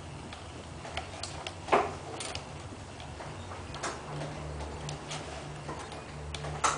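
Metal finger joints of an animatronic Terminator hand clicking and clacking irregularly as the fingers curl and open, with a louder clack about two seconds in and another near the end.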